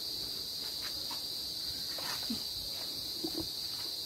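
Steady high-pitched insect chorus, with a few faint voices now and then.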